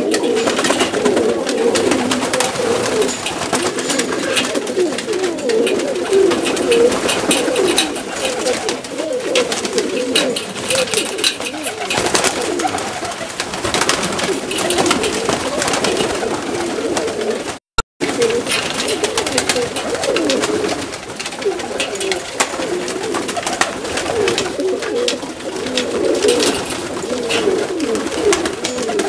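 Many Macedonian Donek pigeons cooing at once, a continuous overlapping chorus of wavering low calls. The sound cuts out for a split second about two-thirds of the way through.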